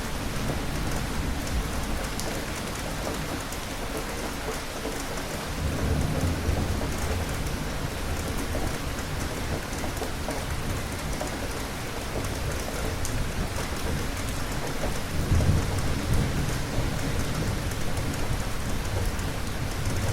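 Steady heavy rain hissing on a surface, with fine drop patter, and low rolls of distant thunder swelling about six seconds in and again about fifteen seconds in.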